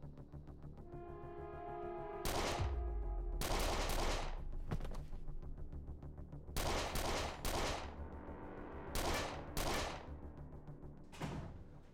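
A series of about eight gunshots, in pairs and singles spread over several seconds, each trailing off in an echo, over a film score with a pulsing rhythm and sustained low tones.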